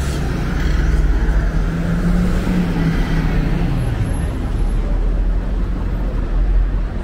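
Road traffic on a city street: a steady low rumble with a motor vehicle's engine note that holds, then drops in pitch about four seconds in.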